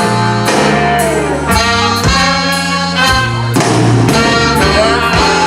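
Live blues band with a horn section of trumpets, trombone and saxophones playing an instrumental passage over bass and drums, with repeated accented hits.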